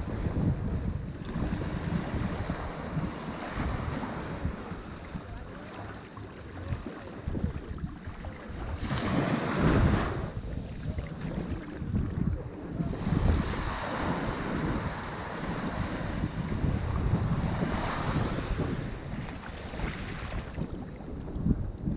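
Ocean waves breaking and washing up a shore, surging every few seconds, with the loudest break about halfway through. A choppy low rumble of wind buffets the microphone underneath.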